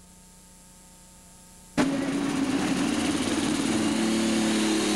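Low hum and hiss for about two seconds. Then a super stock pulling tractor's turbocharged diesel engine cuts in suddenly, running with a steady drone, and from about the middle a high turbo whine rises in pitch.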